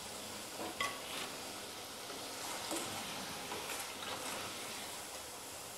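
Hot oil sizzling faintly in a small steel kadhai where koftas have just finished deep-frying, with a few light taps of the slotted spoon against the pan as the koftas are lifted out; the first tap, about a second in, rings briefly.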